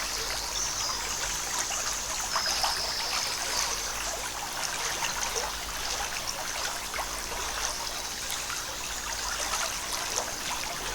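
Forest stream trickling steadily over rocks, with many small splashes and drips.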